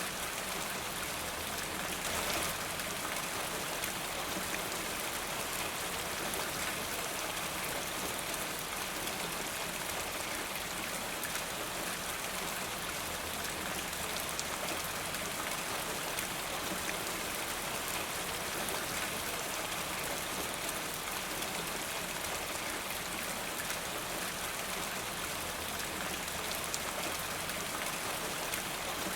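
Steady rain falling in a forest, an even hiss of many drops with fine patters on leaves and surfaces.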